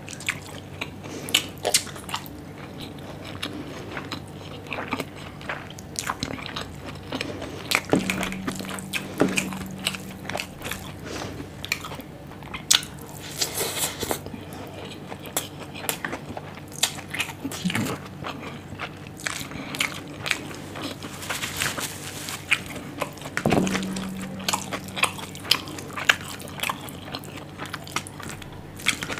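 Close-miked eating: wet chewing, lip smacks and crunches as mouthfuls of Schezwan fried rice are eaten by hand, in an irregular run of small clicks. A brief low hum comes in twice.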